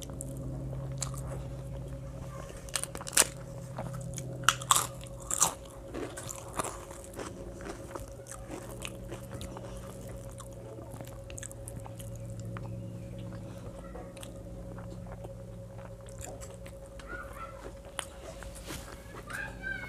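Eating close to the microphone: several loud, crisp crunches a few seconds in, the sound of biting fried papad, then softer chewing of khichuri eaten by hand.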